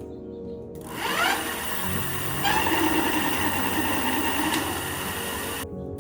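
Electric bike's geared hub motor spinning up with a rising whine, then running at a steady whine. The sound breaks off and starts again near the end.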